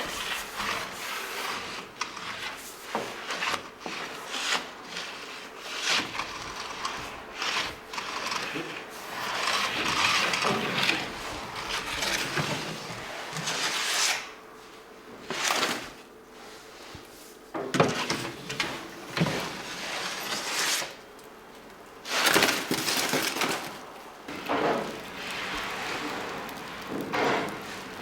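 Irregular scraping and rubbing of wood and metal being handled, with short knocks scattered through it; the sharpest knock comes about 18 seconds in.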